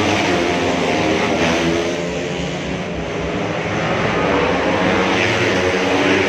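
Several 150cc racing motorcycle engines running at high revs together in a dense, overlapping drone. It eases off a little about halfway through, then rises again.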